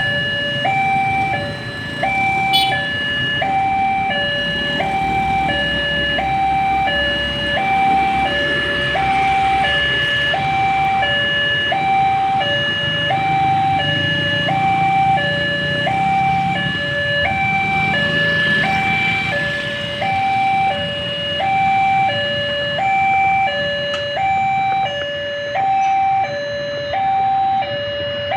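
Railway level-crossing warning siren sounding: an electronic two-tone alarm alternating steadily between a higher and a lower tone, each held about two-thirds of a second. This is the crossing's signal that a train is approaching.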